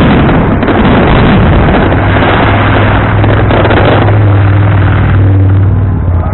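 Fireworks finale: a dense, continuous barrage of bangs and crackling, loud enough to overload the microphone. A steady low hum comes in under it about two seconds in and drops away near the end.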